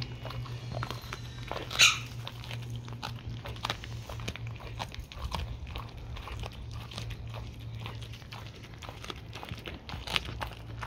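A dog chewing a raw narrow-barred Spanish mackerel head, a steady run of short crunches and bites as its teeth work through the bones. About two seconds in there is one much louder sharp crunch, and a smaller one near the end.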